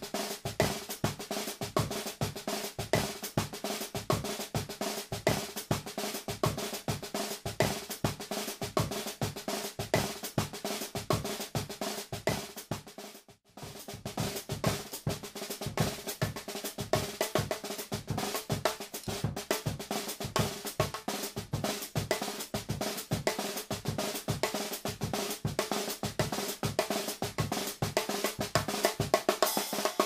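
Sonor Jungle snare, a small snare drum with tambourine-style jingles, played with sticks in fast, busy patterns and rolls. There is a brief break about thirteen seconds in, and the hits grow louder near the end.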